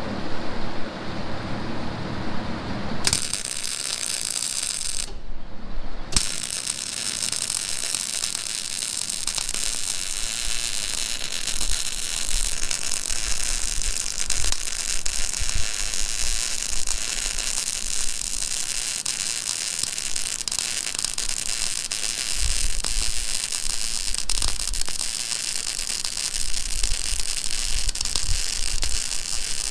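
Welding arc crackling and sizzling, starting abruptly about three seconds in, with a short break about a second later before it runs on steadily.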